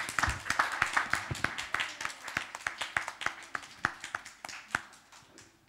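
Applause from a small congregation, many hands clapping. The clapping gets sparser and dies away near the end.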